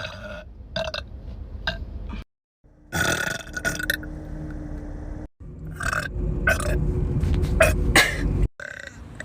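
Loud human burps from several clips cut back to back, each clip ending abruptly in a brief silence before the next; the biggest burps come about three seconds in and between six and eight seconds in.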